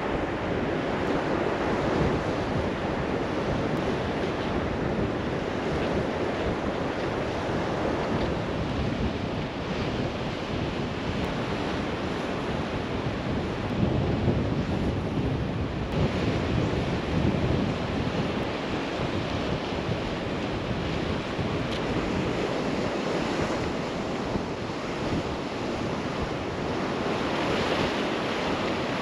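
Surf breaking and washing over shoreline rocks, with strong wind buffeting the microphone.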